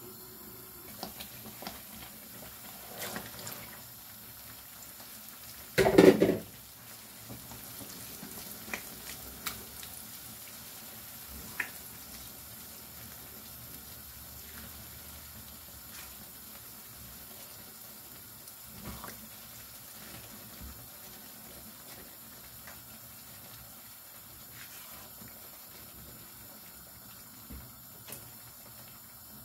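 Spiced onion-tomato paste with chickpeas simmering and sizzling in a non-stick frying pan, a steady hiss with a spatula knocking and scraping now and then. About six seconds in there is a short loud thump.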